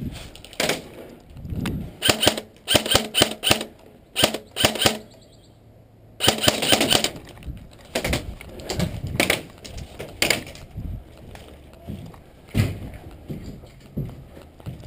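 Airsoft rifle shots, cracking in quick strings and clusters over the first ten seconds, with one longer burst about six seconds in. Fewer, lighter single knocks follow.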